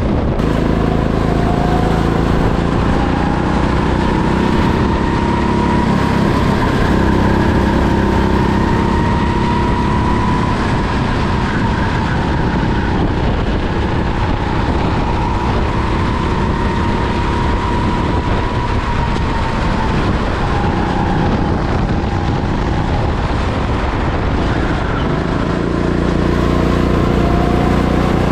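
Sodi rental go-kart's engine running at speed, heard from the driver's seat, its pitch climbing and sagging several times as the throttle is opened and eased around the track.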